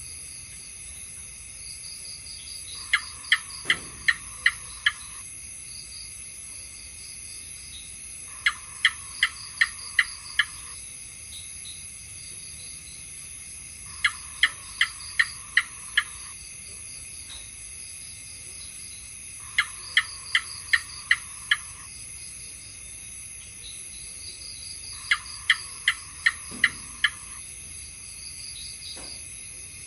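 House gecko calling in repeated bouts of about six sharp 'chuck' chirps, each bout lasting about two seconds and coming roughly every five and a half seconds, five bouts in all. A steady high-pitched insect-like drone runs underneath.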